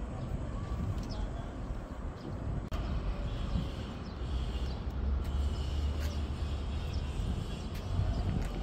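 Outdoor ambience: a steady low rumble, heaviest in the middle, with faint high chirps and a few light clicks.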